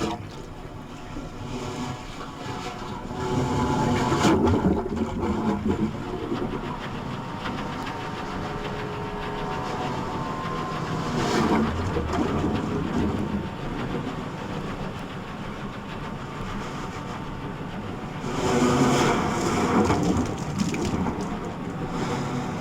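Sea and ship field recording: a continuous low rumble with three swelling washes of noise, each a few seconds long.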